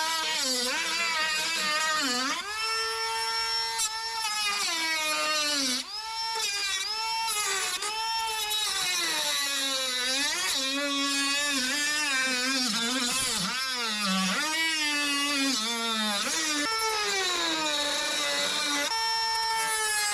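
Handheld power tool cutting the front valance to fit, its motor whine dropping in pitch as it bites in and climbing back as it frees up, over and over.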